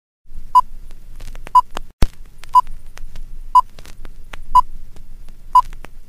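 Film-leader countdown sound effect: a short high beep once a second, six in all, over a low hum and a crackle of faint clicks. A loud click comes about two seconds in.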